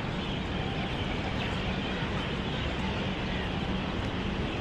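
Steady outdoor city background noise: an even rumble with a faint low hum and no distinct events.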